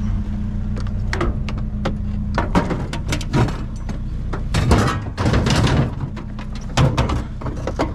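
A run of irregular thunks and knocks as a discarded TV with a metal back is handled and loaded, over the steady low hum of an idling vehicle engine.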